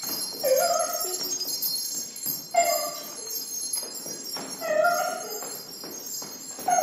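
Small metal bells or chimes ringing on without a break, while a short pitched call that bends upward sounds four times, about two seconds apart.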